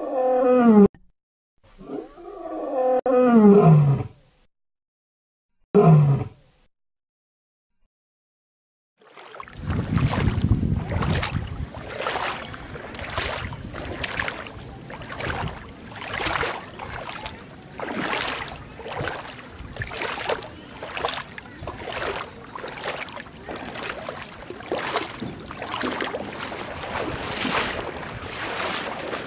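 A lion roaring three times, each call a deep moan falling in pitch, with the middle one the longest. After a few seconds of silence, steady rushing and splashing of water sets in, surging about once a second, as dolphins leap and splash in a pool.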